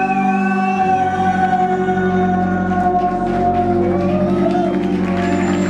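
Live electronic music played loud through a PA: long held synthesizer tones, with a pulsing low note entering about a second in and wavering melody lines above.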